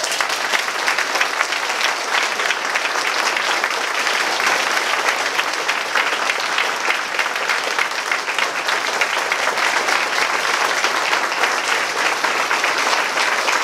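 Audience applauding: a roomful of people clapping steadily and continuously, starting right after a speech ends.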